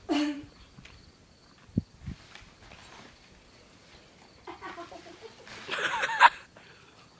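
A person coughing in short harsh bursts, with two dull thumps a little under two seconds in.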